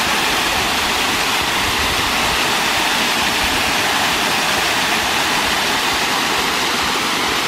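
Small waterfall spilling over stepped rock ledges into a pool: a steady, even rush of falling water.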